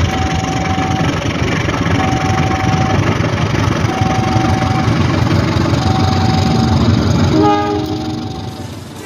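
Diesel locomotive hauling a passenger train past: a heavy low engine rumble with wheel noise on the rails. A single high tone sounds four times, about every two seconds. About seven and a half seconds in there is a brief cluster of tones, and then the rumble fades.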